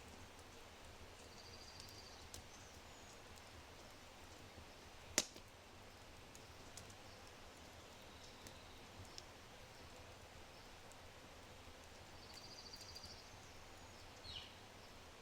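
Low oak fire in a brick fireplace crackling faintly, with sparse small crackles and one sharp pop about five seconds in. A bird gives a short high trill twice, near the start and again about twelve seconds in, and a brief falling note near the end.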